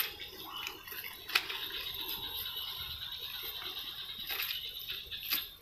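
Cast net being handled and thrown, its lead sinkers clicking and rattling in a few sharp ticks, over a steady high-pitched hum.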